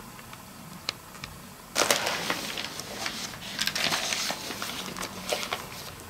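Rustling, crinkling handling noise that starts suddenly about two seconds in and runs for several seconds, with a few faint clicks before it.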